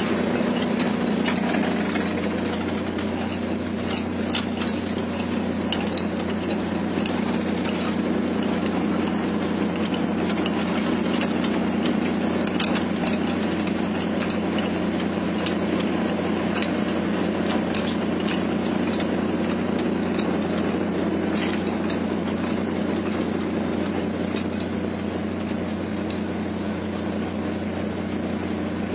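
Steady engine drone of a squid-jigging boat, overlaid with scattered sharp clicks and rattles from the automatic jigging machines reeling in lines and squid.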